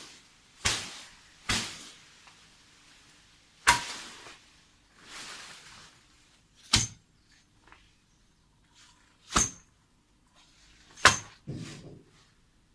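A metal hand tool striking hard: about seven irregular blows, a second or two apart, some with a brief metallic ring.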